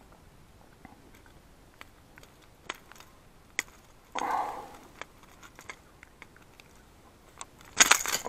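Unhooking a pike with long-nose pliers: a few sharp ticks of metal on the jerkbait's treble hooks, then two short bursts of rattling and scuffing, the louder near the end as the pike thrashes in the lip grip.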